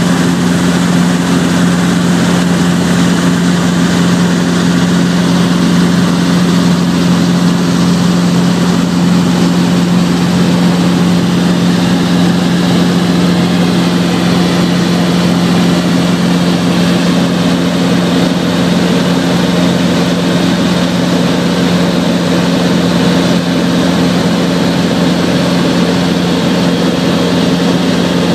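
Robinson R22 Beta II helicopter heard from inside the cabin in flight: the steady drone of its Lycoming four-cylinder piston engine and rotors, with a strong low hum held at one pitch throughout.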